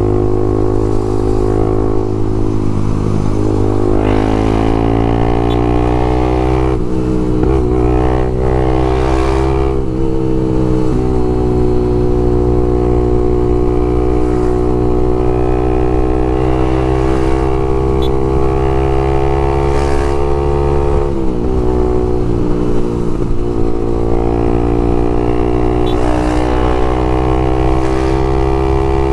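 Honda CBX 250 Twister's single-cylinder four-stroke engine running through a Leo Vince aftermarket exhaust while riding at speed. The engine note climbs and settles several times, dipping briefly about a quarter of the way in, again about a third of the way in, and once more about two thirds in before rising again.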